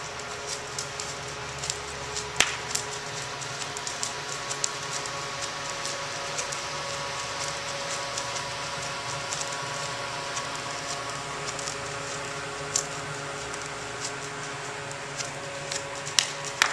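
Steady mechanical hum with several held tones from a large barn ventilation fan running, dotted with scattered light clicks, the sharpest about two seconds in.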